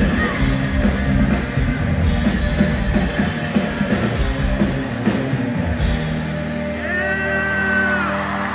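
Live rock band with electric guitars, bass and drums playing loudly. About six seconds in, the drums drop out and the guitar chords ring out as the song ends. A long high whoop from the audience rises and falls near the end.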